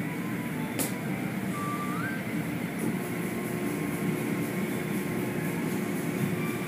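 Automatic car wash tunnel machinery running, heard from inside a car: a steady low rumble of motors, water and cloth brushes, with one sharp knock about a second in.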